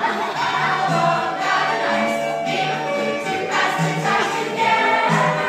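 A stage musical's cast singing together in chorus over musical accompaniment with a steady bass line.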